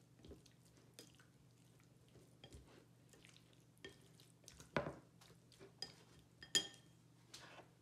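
Wooden chopsticks stirring cubed raw beef in a glass bowl to work in a cornstarch-and-oil marinade. Faint, irregular clicks and taps, with a few louder clinks about five and six and a half seconds in.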